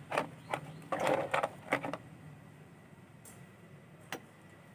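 A few sharp clicks and taps in the first two seconds, then a single click about four seconds in: small hard-plastic and metal contacts of multimeter test probes being handled against an electronic component during a continuity check.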